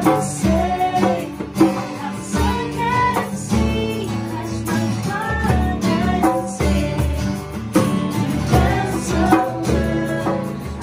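Women singing a pop song to two strummed acoustic guitars and a hand drum keeping a steady beat.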